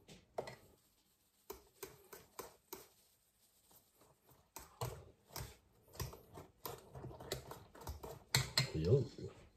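Light, irregular clicks and taps, one or two a second, as black pepper is shaken from a shaker into a stainless steel bowl of egg and a utensil taps and scrapes against the bowl.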